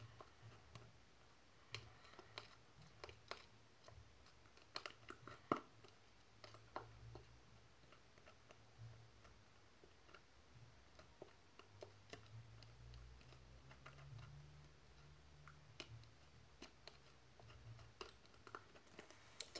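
Faint, scattered clicks and small sticky smacks of slime being kneaded by hand, over a low steady hum.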